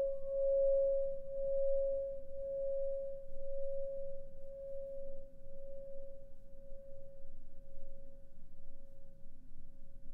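Singing bowl ringing out in one slowly fading tone with a gentle wavering pulse, its upper overtone dying away first. The bell marks the end of the meditation.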